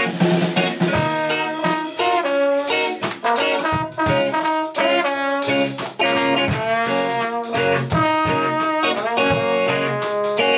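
Live ska band playing a mellow song, a horn section carrying the melody over guitar.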